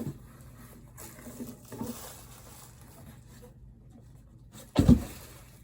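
A box and its packaging being handled and opened: soft rustling and light knocks, then one loud thump near the end.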